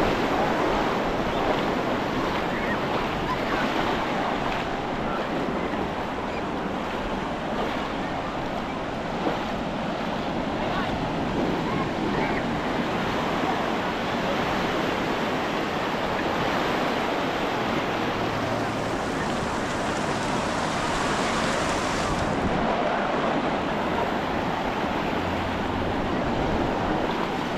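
Ocean surf washing onto the beach, a steady, continuous rush of breaking waves.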